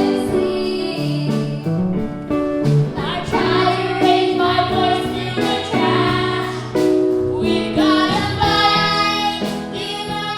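Music with singing: a sung melody over instrumental accompaniment with a bass line.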